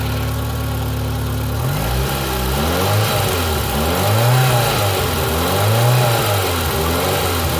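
Fiat Palio 8-valve engine idling, then revved up and down about four times, with a new water pump fitted. It runs without the growl of the old pump's worn bearing.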